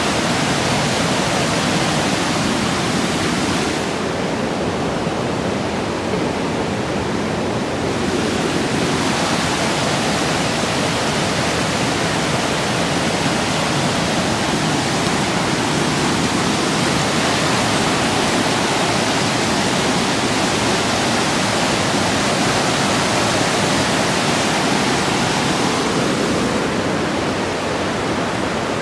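Swollen river in flood rushing through whitewater rapids: a steady, loud rush of churning water.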